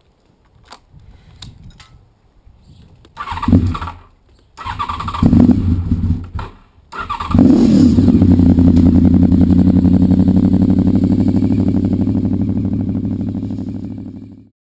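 A motorcycle being started: a few faint clicks, two short bursts of the starter cranking, then the engine catches about seven seconds in and idles steadily before fading out.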